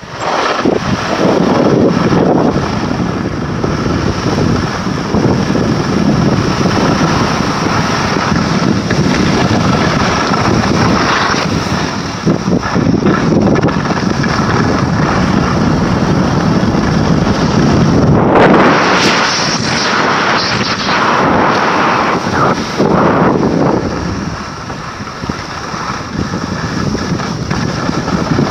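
Heavy wind buffeting the phone's microphone as the filmer skis down a groomed slope, mixed with the hiss of skis on snow. The hiss swells louder for a couple of seconds about two-thirds through.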